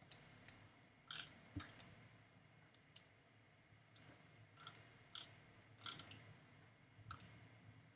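Near-silent room with about eight faint, sharp computer mouse clicks scattered irregularly through it.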